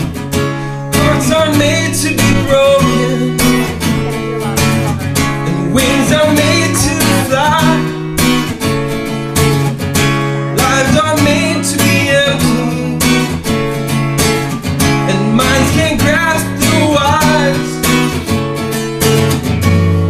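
Acoustic guitar strummed in a steady rhythm, with a man's voice singing a wavering melody over it for most of the stretch.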